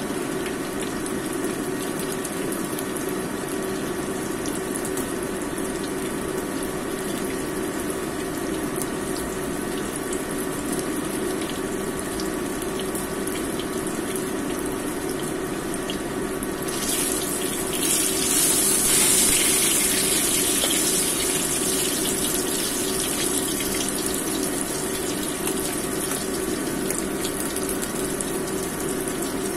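Seasoned fish head shallow-frying in oil in a wok: a steady sizzle over a low steady hum, turning louder and hissier about 17 seconds in.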